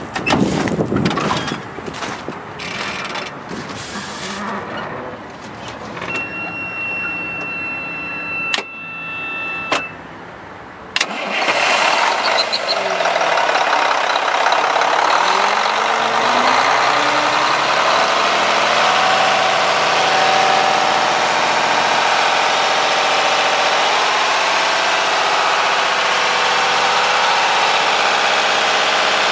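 Mack E7-350 diesel truck engine starting about a third of the way in, then running at a steady idle. A steady high tone sounds for a few seconds just before it starts.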